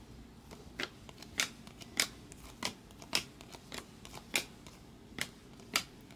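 A stack of chrome-finish trading cards worked through by hand one card at a time. Each card slid off the stack gives a short crisp click, about nine in all, at a steady pace of roughly one every half second or so.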